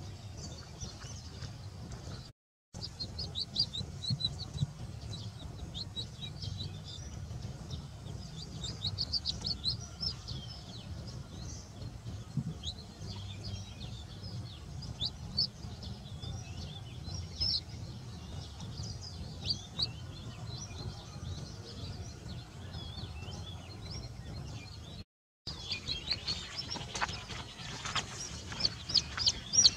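A young chicken chick peeping over and over in short high chirps, growing louder and more frequent near the end, over a steady low rumble. The sound cuts out briefly twice.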